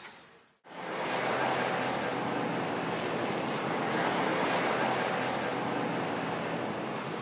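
Steady wash of road traffic noise, starting after a brief silence about half a second in and dropping away near the end.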